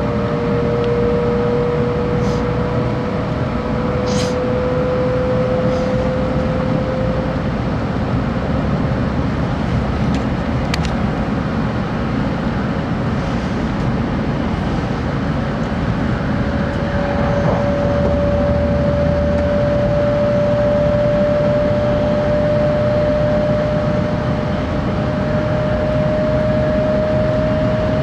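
Sanyo Shinkansen 700-series Hikari Rail Star train running, a steady rumble and rush with a single whine that slowly rises in pitch.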